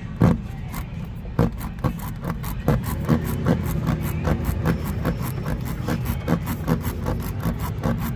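Tire repair reamer (rasp tool) being worked in and out of a puncture in the tire tread, scraping rubber in repeated strokes about twice a second, cleaning out and enlarging the hole for a plug.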